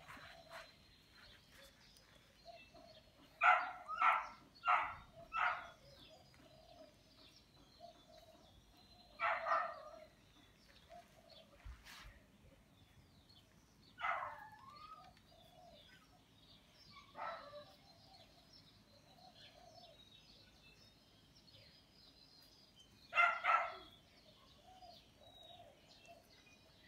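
A dog barking in short bouts: four quick barks a few seconds in, then single barks, and a quick pair near the end.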